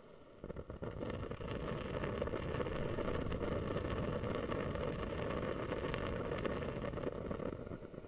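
Humidifier bubbling, a dense run of small crackling pops that starts about half a second in and dies back near the end, over a faint steady hiss.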